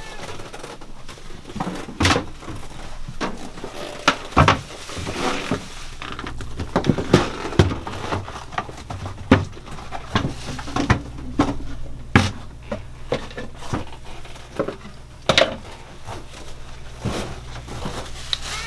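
Scattered knocks, clicks and clatter of containers and locker doors being handled as cleaning and oil-change supplies are put away, over a steady low hum.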